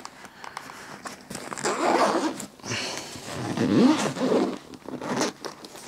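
Zipper of a soft DJI gimbal carrying case being pulled open in two long strokes, about two and four seconds in, with small handling clicks between them.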